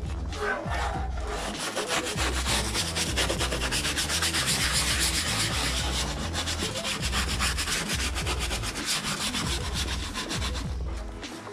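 Rapid, continuous rubbing strokes by hand, with a low pulsing underneath.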